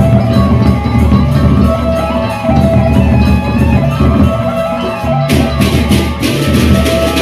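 Gendang beleq ensemble playing: large barrel drums beaten in a driving pattern under ringing gongs and kettle-gong melody. About five seconds in, a bright, rapid clashing comes in over the top.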